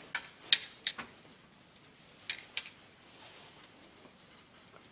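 A few short, sharp clicks or taps: four in quick succession in the first second, then two more about two and a half seconds in.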